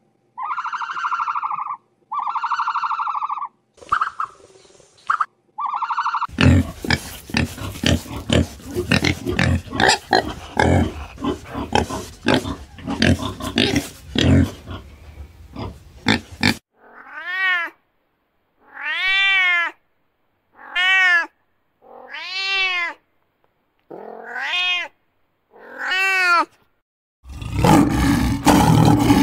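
A run of animal calls. First come a few short calls, each held at one steady pitch. Then a pig grunts for about ten seconds, dense and noisy, followed by about six meow-like calls that each rise and then fall in pitch, and near the end a lioness growls and roars.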